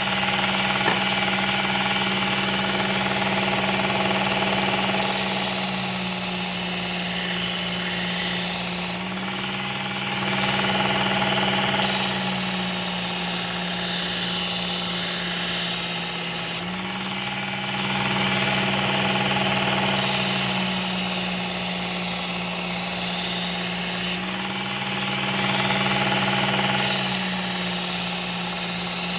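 Work Sharp Ken Onion Edition belt sharpener running steadily while a hatchet edge is ground on a coarse 120-grit belt. The grinding hiss breaks off three times, for a few seconds each, about every seven or eight seconds, as the blade comes off the belt. This is the coarse-belt stage that raises a burr along the edge.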